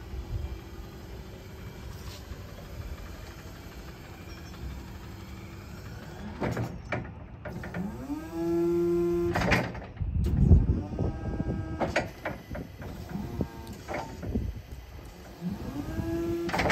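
Toyota 7FBM25 battery-electric forklift's motor whining. It rises in pitch and then holds steady about eight seconds in, and again near the end, with a fainter steady whine at the start. Heavy clunks and knocks from the mast and forks come in between.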